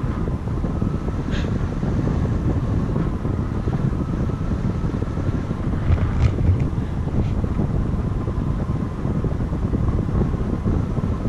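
Airstream of a paraglider in flight buffeting the camera microphone: a steady, loud low wind rumble.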